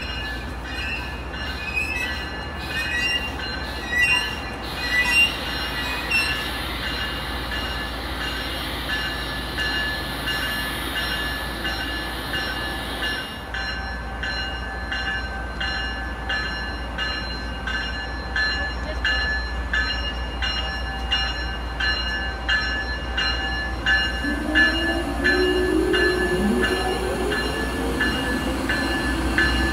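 Amtrak passenger train hauled by a Siemens ACS-64 electric locomotive rolling past at low speed. Under a steady low rumble, the wheels click regularly over rail joints and squeal in high steady tones. Near the end a few lower squealing tones slide downward.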